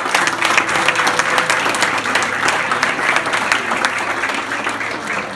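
A roomful of guests applauding, dense clapping that slowly tapers off toward the end.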